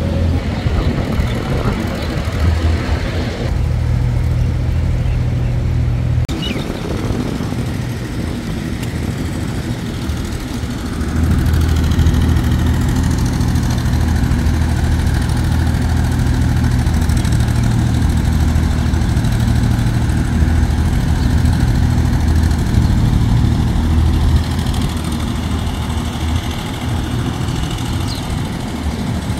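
Steady low rumble of motor vehicle engines from road traffic, getting louder about eleven seconds in.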